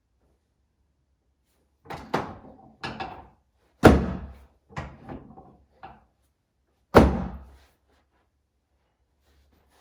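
A run of about eight heavy thumps and knocks, the loudest about four seconds in and again about seven seconds in, each dying away over about half a second.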